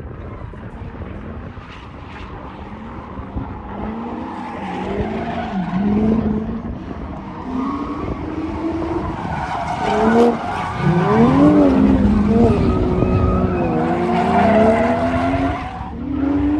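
Drift cars sliding through track corners: engines revving up and down, with tyres skidding and squealing. It grows louder about ten seconds in.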